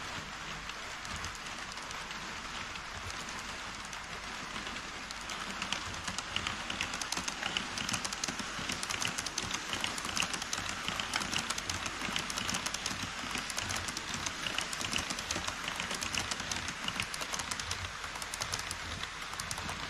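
HO-scale model trains running on KATO Unitrack over a truss bridge. Container wagons roll past with a steady hiss. From about five seconds in, an E5 series Shinkansen model passes with a louder, rapid fine clicking of its wheels on the track.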